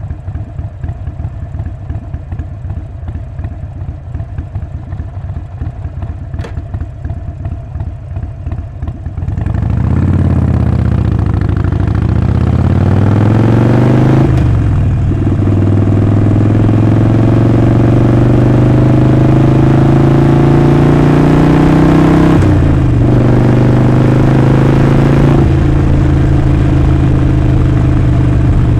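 Harley-Davidson Sportster 48's air-cooled 1200 V-twin loping at idle, then pulling away about nine seconds in and accelerating hard, its pitch dipping briefly at two gear changes before running steadily at speed.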